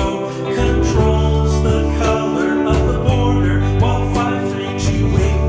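Music with guitar over a steady beat and a heavy bass line.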